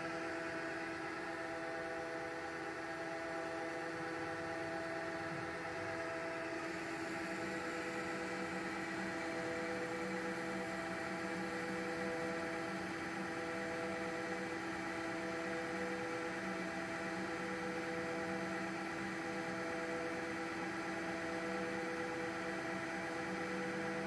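CNC lathe running: a steady machine hum with several held tones over a faint hiss, and a lower hum joining about six and a half seconds in.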